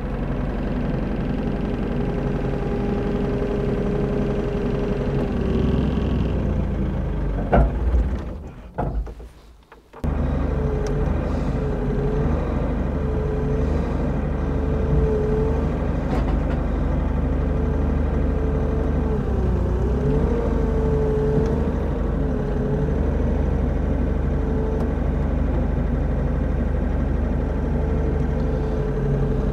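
Bobcat E50 compact excavator's diesel engine running steadily, with a whine from the hydraulics that wavers up and down as the arm moves and the X-Change coupler releases the bucket. The sound drops out for about two seconds around a third of the way in.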